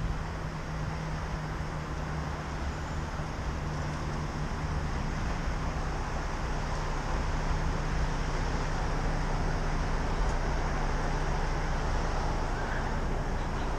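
Steady city road traffic noise with a constant low engine hum.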